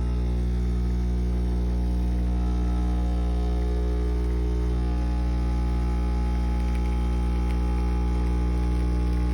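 Breville Dual Boiler espresso machine's vibratory pump running with a steady buzzing hum while pulling a shot, on a machine failing to build pressure.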